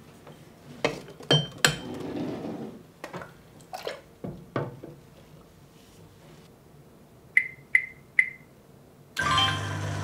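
Knocks and clinks of a BONIQ sous vide stick being lifted from its ceramic stand and clipped onto the rim of a plastic water container, then three short beeps from its control buttons, about half a second apart. Music comes in near the end.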